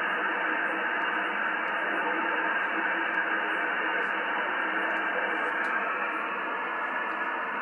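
Steady static hiss from an Alinco DX-70 transceiver's speaker, receiving CB channel 13 (27.110 MHz) in upper sideband with no station talking. The hiss is cut off above and below the voice range of the sideband receiver.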